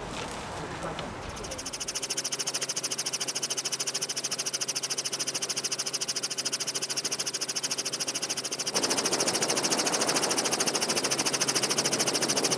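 Helicopter noise heard from inside the aircraft: a fast, even rotor beat over a steady high whine. It sets in about two seconds in and gets louder about nine seconds in.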